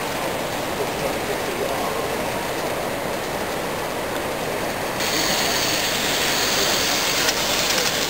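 Steady din of a busy exhibition hall mixed with the running of model freight trains passing on the layout. About five seconds in the sound steps up, louder and brighter.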